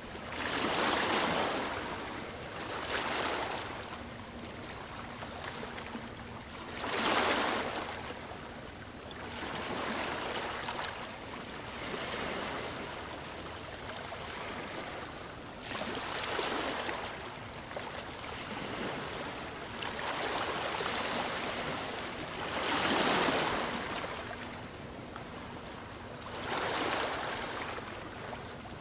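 Sea waves breaking and washing ashore in irregular surges every few seconds, each swelling and fading over a second or two, with the loudest near 1, 7 and 23 seconds in.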